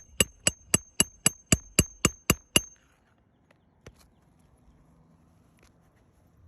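Hammer driving a roofing nail into an asphalt shingle: about eleven quick, even strikes at roughly four a second, each with a short metallic ring, stopping before the third second. One lighter knock follows a little later.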